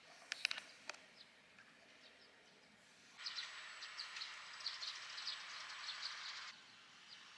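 Birds chirping outdoors, short high calls over a steady hiss, which comes in suddenly about three seconds in and cuts off about six and a half seconds in. A few sharp clicks come in the first second.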